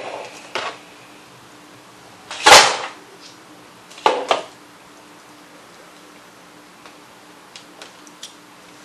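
Snow crab shell being cracked and broken apart by hand close to the microphone: a loud crack about two and a half seconds in, another about four seconds in, then a few light clicks of shell near the end.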